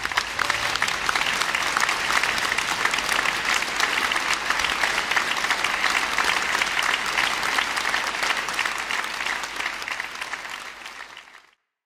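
Concert audience applauding, a dense, steady clapping that fades out near the end.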